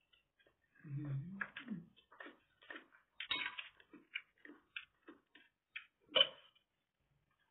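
Close-up eating sounds: chewing and wet mouth clicks about two or three a second, with a brief low hum of voice about a second in. Near the end a sharp clink of a metal spoon against a plate.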